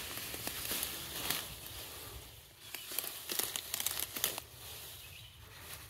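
Comfrey plants trampled underfoot: leaves rustling and stems crackling and crunching as they are stepped over, in two spells. The crunch is the stems breaking so the plants stay down.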